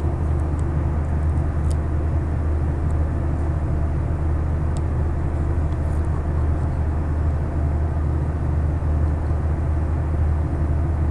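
Steady low background rumble, with a few faint small clicks.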